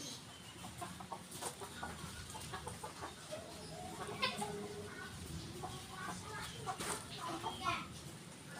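Ayam kampung (Indonesian village chickens) clucking: a scatter of short calls, a little louder about four seconds in and again near the end.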